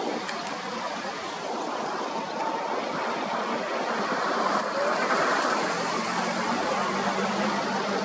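Steady rushing wash of surf on a beach, with a low steady hum coming in near the end.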